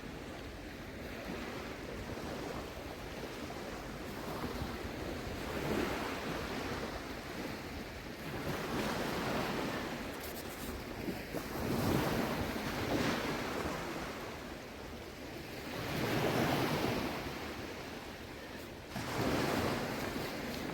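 Shallow sea water swishing and surging in swells every few seconds, with wind on the microphone.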